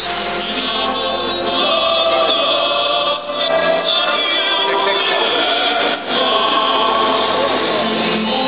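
Music for the Dubai Fountain water show, with choral singing voices. It dips briefly twice.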